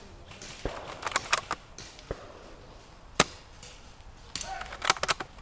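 Airsoft guns firing irregular single shots as sharp cracks, with the loudest about three seconds in and a quick cluster near the end.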